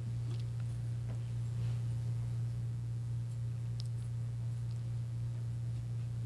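Steady low electrical hum from the sound system, with a few faint clicks and a soft hiss.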